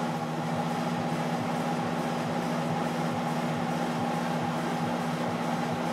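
Steady mechanical hum from shop ventilation, held on a few low, unchanging tones.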